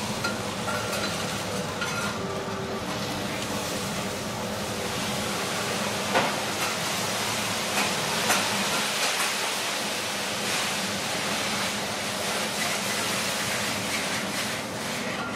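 Wagyu steak sizzling on a hot steel teppan griddle, a steady hiss, with a few light clicks of a metal spatula and fork against the plate.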